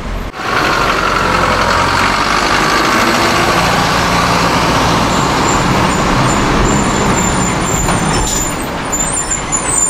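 A 4x4 expedition truck camper's engine running as the truck drives off, over steady city street traffic noise.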